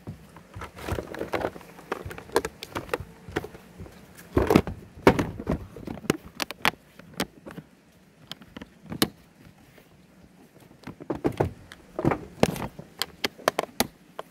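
Handling of a hard plastic power-drill carrying case: irregular clicks, knocks and rattles as the drill's cord is stuffed in and the lid is shut and latched.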